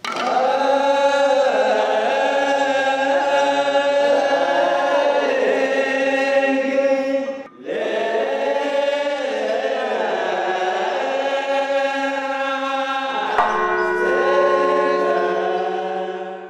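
Channel intro music: a choir chanting in long, wavering held notes over a steady drone. The sound drops out briefly about seven and a half seconds in, and a low hit comes about thirteen seconds in as the music shifts to steadier held tones.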